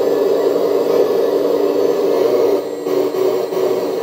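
Hydraulic pump of a model RC Liebherr 970 excavator giving a steady whine while the boom and bucket move. The sound dips briefly a little under three seconds in.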